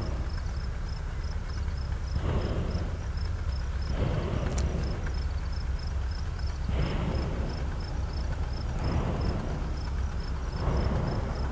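Cricket chirping steadily, about two to three chirps a second, over a constant low rumble and a rushing noise that swells and fades every two seconds or so.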